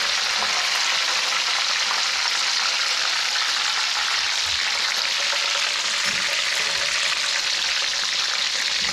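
Breaded cutlet deep-frying in hot oil in a wok: a steady, dense sizzle of vigorously bubbling oil as the cutlet is moved about in it.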